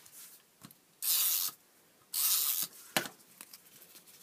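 Adhesive tape runner drawn twice along a paper strip, each pass a half-second rasping hiss, then a light click as the card is pressed down or the runner set down.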